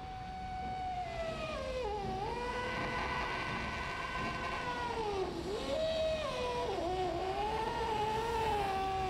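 A slow, wavering melody of long held notes that glide down and back up, swelling in over the first second.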